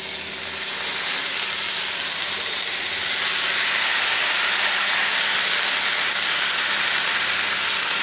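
Washed, still-wet spinach leaves going into hot oil and fried vegetables in a kadai, sizzling with a loud, steady hiss of steam as their water hits the hot pan. The hiss swells as the leaves go in, then holds.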